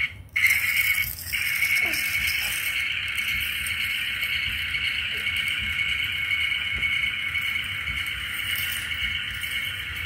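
Battery-powered toy vacuum cleaner running with a steady rattling whir; it drops out for a moment right at the start, then runs on steadily.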